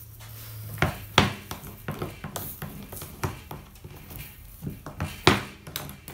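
Irregular light clicks and knocks of stained glass pieces and tools being handled on a wooden workbench, with two louder knocks about a second in and another just after five seconds.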